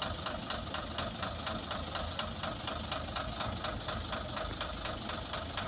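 Mitsubishi Fuso 220PS dump truck's six-cylinder diesel engine idling, with a steady rhythmic clatter of about six beats a second.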